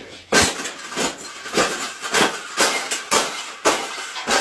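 Repeated hard bangs, about eight in a row at a little under two a second, each with a short ring after it.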